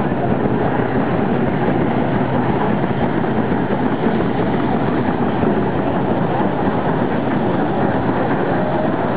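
1907 Marshall threshing machine running under load, belt-driven by a 1906 Marshall 4 hp portable steam engine, as sheaves are fed into the drum. It makes a steady, continuous mechanical rattle and hum.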